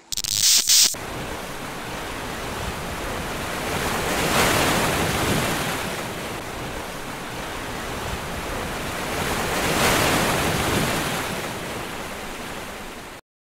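Loud rushing noise that swells about four seconds in and again near ten seconds, with a brief louder burst right at the start; it cuts off abruptly near the end.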